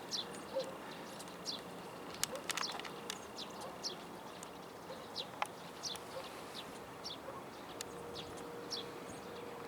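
Small birds chirping outdoors: short, falling high chirps repeated about once or twice a second, with a few sharp clicks about two seconds in.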